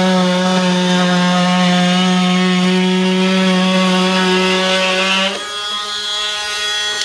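Cordless Ryobi oscillating multi-tool buzzing steadily at one constant pitch as its blade cuts into drywall. About five seconds in it is drawn out of the wall and runs on more quietly.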